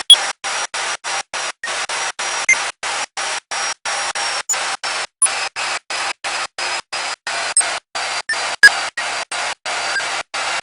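Electric magnetic drill motor running with a steady, hissing whine, with a few sharp clicks along the way. The audio is chopped by silent dropouts about four times a second.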